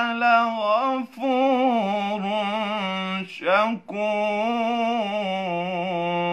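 A young man's solo voice reciting the Quran in melodic tajweed style, drawing out "la-ghafūr" of the verse "inna rabbanā la-ghafūrun shakūr" with ornamented, wavering runs. There is a short break about a second in and another just before the middle, then one long steady held note through the second half.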